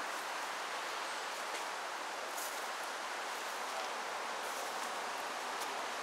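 Steady outdoor ambient noise: an even hiss with no distinct events.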